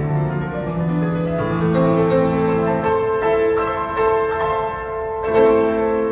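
Piano playing a slow piece of held chords under a melody, with a louder chord struck about five seconds in.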